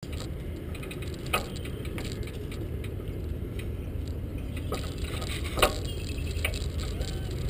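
Bicycle cargo box rolling along a paved path, heard from a camera mounted on it: a steady low rumble with a few sharp clicks and rattles, the loudest about a second and a half in and again past five seconds.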